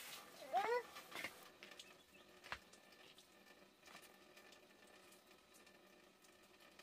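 Quiet ambience: a short chirping call that rises and falls in pitch about half a second in, then a few light knocks and taps.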